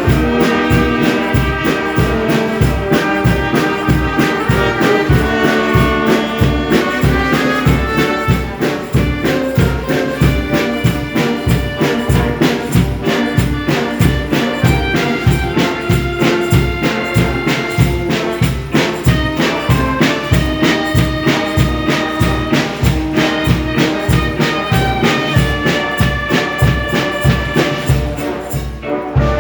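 Instrumental intro by a brass band, with held trumpet and trombone notes over a steady bass beat of about two and a half beats a second. The music drops back briefly near the end.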